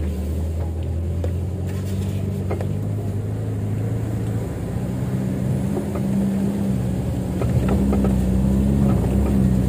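Suzuki Katana (Jimny) long-wheelbase 4x4's four-cylinder engine pulling hard up a steep dirt climb, heard from inside the cabin. The low engine note shifts about halfway through and grows slightly louder toward the end.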